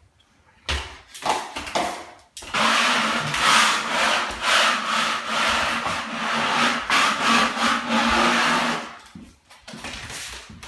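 Loud, continuous scraping and grinding noise from drywall finishing work with joint compound. It starts abruptly about two seconds in and stops about nine seconds in, after a few short knocks.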